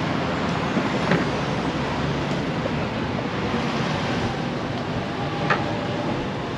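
Steady city street noise of passing traffic at a road crossing, with two short clicks, one about a second in and one later on.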